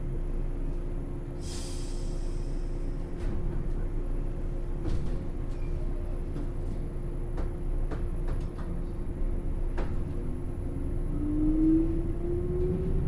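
Inside a JR 107 series resistance-controlled electric train: a steady hum and rumble, a short hiss of air about a second and a half in, and scattered sharp clicks. About ten seconds in, the traction motors start a whine that rises steadily in pitch as the train pulls away.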